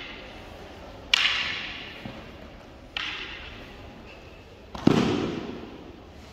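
Wooden aikido practice weapons clacking together twice, sharp cracks that ring out in a large echoing hall. Near the end comes a louder, heavier impact with a deeper thud, the sound of a body landing on the foam mat.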